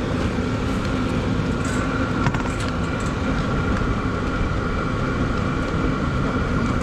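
Chinese diesel air heater running steadily, its combustion fan giving an even hum with a steady whine, alongside a car engine idling to power it.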